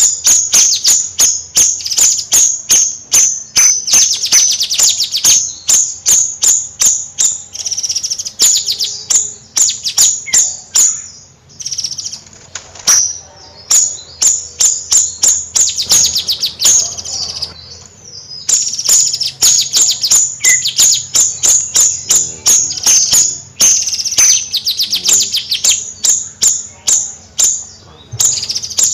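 Bayeman songbird chattering in long runs of rapid, sharp, high notes (the "nyrecet" call). The runs break off briefly about twelve and eighteen seconds in.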